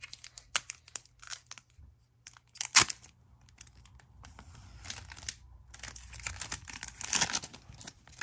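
Foil Pokémon booster pack wrapper being torn open and crinkled in short rips and crackles, the sharpest a little before three seconds in.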